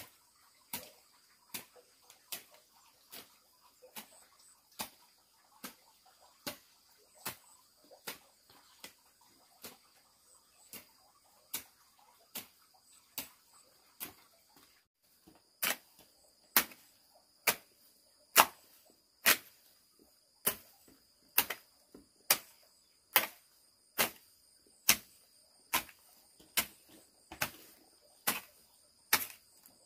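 Steady, even rhythm of sharp strikes, like a hand tool chopping, about one every 0.8 s, getting louder about halfway through. A steady high buzz of insects runs underneath.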